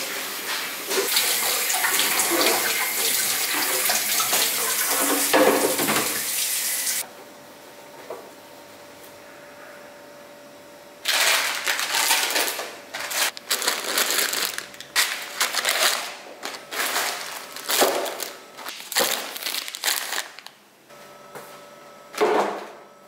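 A few seconds of dense, continuous rushing noise, then a quieter stretch with a faint steady hum, then irregular rustles and knocks of plastic-wrapped food packets being handled and dropped into a plastic storage box, with a louder knock near the end as the box goes into a drawer.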